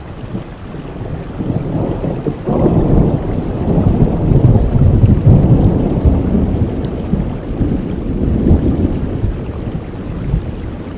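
Steady rain with a long roll of thunder that breaks in sharply about two and a half seconds in, swells, then rumbles away over several seconds.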